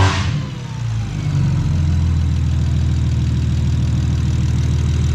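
BMW 340i's turbocharged B58 inline-six idling steadily, its exhaust leak cured by a new exhaust manifold gasket and sounding a lot quieter. A brief loud rush right at the start, then the idle settles.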